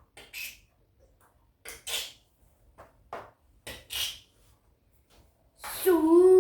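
A few short clicks and rustles, then near the end a child's loud, long held vocal shout that begins with a hiss and wavers in pitch before settling on one steady note.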